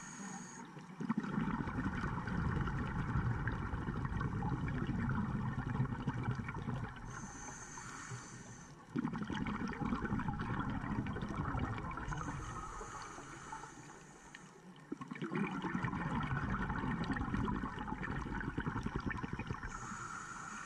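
Scuba regulator breathing heard inside a GoPro's underwater housing. A short hiss of inhalation alternates with a longer gush of exhaled bubbles, about three breaths in all.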